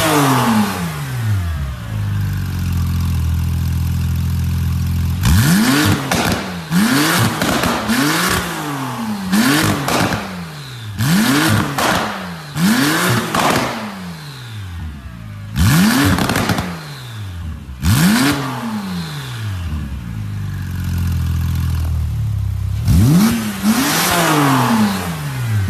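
Porsche 991.2 Carrera S twin-turbo flat-six on a decat valved exhaust, blipped from idle about a dozen times in quick groups, popping and crackling as the revs drop back. Between the groups it settles to a steady idle for a few seconds.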